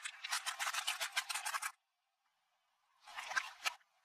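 Crunching and crackling as a car tyre rolls over and crushes small objects on asphalt: a dense run of sharp cracks for nearly two seconds, then a shorter burst of crunching about three seconds in.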